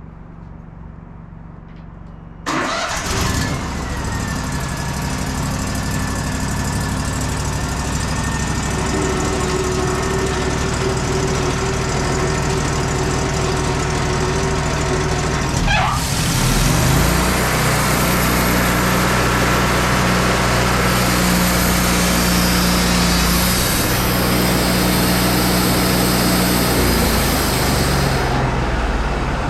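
Wood-Mizer LT40 bandsaw mill: the engine runs at a low idle, then comes up suddenly to full speed about two and a half seconds in. From about sixteen seconds it settles into a steady, louder run with a strong hiss as the band blade saws a one-inch slab through madrone.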